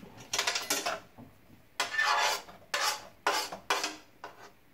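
A utensil scraping and stirring onions and garlic in a non-stick frying pan: a run of short rasping strokes about half a second apart, with a longer stroke about two seconds in.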